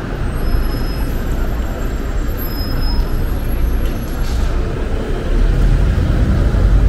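Steady traffic noise on a wet city street: a low rumble of passing vehicles that grows heavier in the second half, with two brief, faint high squeaks in the first half.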